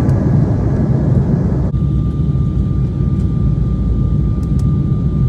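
Steady low rumble of a jet airliner heard inside the cabin, engines and airflow in flight. A thin steady whine comes in about two seconds in.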